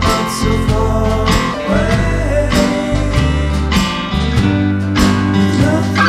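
Band music: guitar over a heavy bass line and steady drum beats, with a voice singing.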